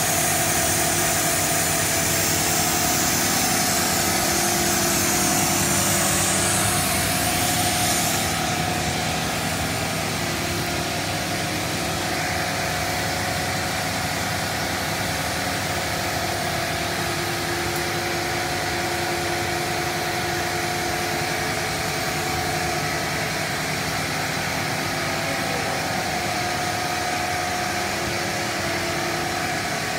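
Cast stretch film extrusion line running: a steady mechanical hum and whir from the extruder and chill-roll drives, with a few steady tones. A high hiss over it drops away about eight seconds in.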